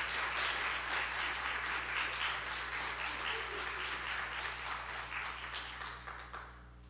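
Church congregation applauding after a baptism, the clapping thinning out and dying away near the end.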